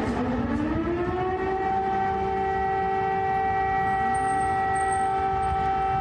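Civil-defence air-raid siren sounding a test of the warning system: it rises in pitch over the first couple of seconds, then holds a steady wail. A fainter second rising tone comes in about four seconds in, over street noise.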